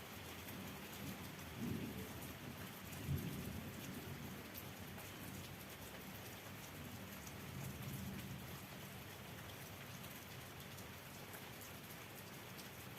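Steady rain falling, with low rumbles of thunder about two and three seconds in and again later, the sharpest about three seconds in.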